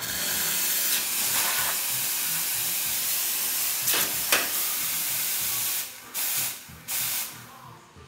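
Steam wand of an SV Italia two-group espresso machine being purged into the air: a loud, steady hiss of steam for about six seconds, then two short blasts as the steam valve is opened and shut again.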